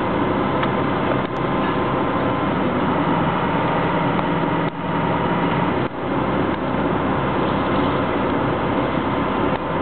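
A large engine running steadily at an even pitch, a continuous mechanical hum with two brief dips in loudness about five and six seconds in.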